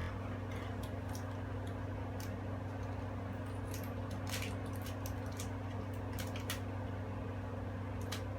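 Scissors cutting open a plastic packet of beads: scattered small snips, clicks and crinkles over a steady low hum.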